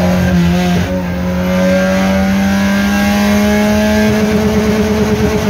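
Kadett GSI's naturally aspirated 2.0 four-cylinder, breathing through an open 4-into-1 header with no air filter, under hard acceleration, heard inside the stripped cabin. After a brief dip about a second in, its pitch climbs steadily for several seconds.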